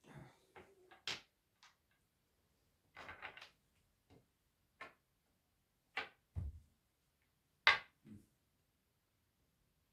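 Wooden chess pieces clicking and knocking on a wooden chessboard as moves are made: a scattered series of short taps, with a deeper thump and then the sharpest click about three quarters of the way through.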